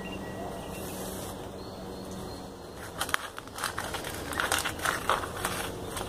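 A hard digging tool scraping and crunching through soil and roots in a tree pot, in irregular strokes from about halfway through.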